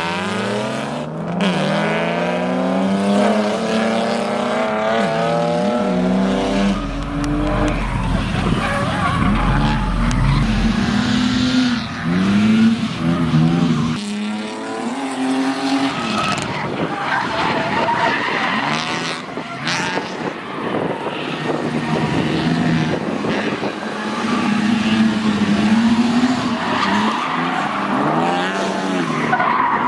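BMW E36 328i's M52 straight-six, breathing through a 3-inch glass pack, revving up and down again and again with tyres squealing as the car drifts.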